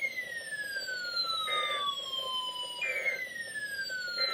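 Electronic siren-like alarm tone that jumps up and slides steadily down in pitch, repeating about every three seconds, with short beeps at a few points.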